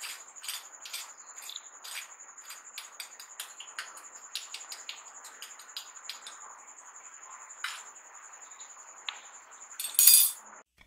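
Crisp breadcrumb crust of a fried chicken nugget crackling in many small irregular clicks as it is pulled apart with the fingers and a fork. A faint steady high whine sits under it, and a short louder rush of noise comes near the end.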